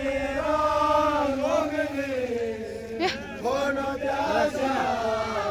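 A group of men's voices chanting in long held notes that slowly rise and fall, with a brief sharper vocal sound about three seconds in.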